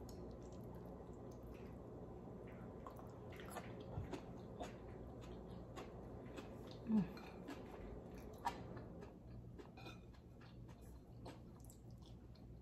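Faint eating sounds: soft wet clicks and smacks of chewing, and of fingers picking at fried fish on a plate, scattered irregularly through the quiet.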